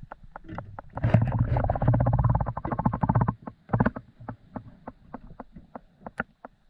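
Fishing reel clicking steadily, about three to four clicks a second, as line is wound in on a hooked bluegill. About a second in there is a faster, louder run of rapid clicking for about two seconds, then the steady clicks go on.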